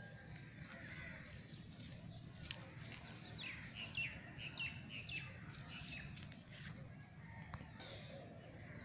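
Small birds chirping: a quick run of short, high, falling chirps a few seconds in, over a low steady outdoor rumble.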